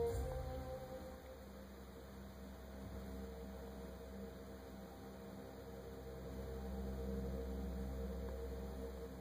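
Low steady hum with soft held tones that shift every second or two, from the hushed soundtrack of a deer-hunting show playing on a television.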